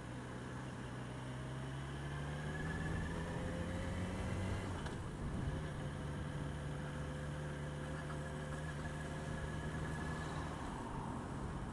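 Motorcycle engine heard from on the bike while riding along at town speed, its note climbing slightly at first, breaking briefly about five seconds in, then holding steady.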